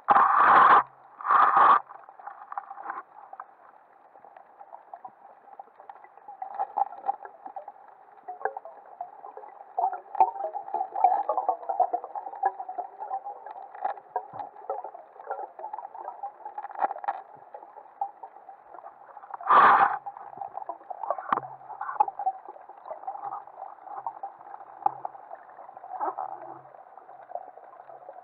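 Muffled underwater sound through a waterproof camera housing: a steady hiss of moving water with scattered faint crackles and knocks. Loud short muffled thumps or rushes come twice in the first two seconds and once again about twenty seconds in.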